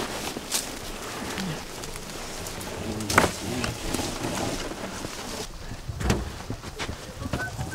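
Wet gillnet being hauled in from the lake, water running and dripping off the mesh, with a few sharp knocks and some short chirps near the end.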